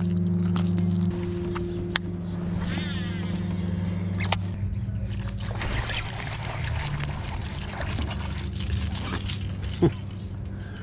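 A steady low drone, over the clicks and whir of a baitcasting reel being cast and reeled in.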